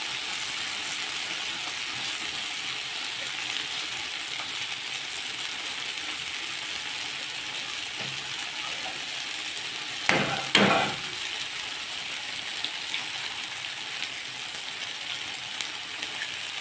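Thick tomato-and-pepper shakshuka sauce sizzling steadily in a frying pan, with two sharp knocks close together about ten seconds in.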